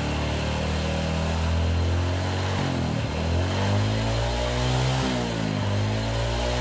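Honda Supra Fit's small single-cylinder four-stroke engine running at a steady speed, then its revs dipping and climbing back about three times in the second half as the throttle is worked during carburettor air and idle-speed tuning.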